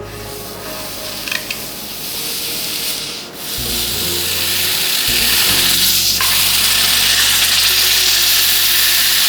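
Red-hot iron ball hissing and sizzling as it melts into ice. The hiss swells about three and a half seconds in and then holds steady and loud, over background music.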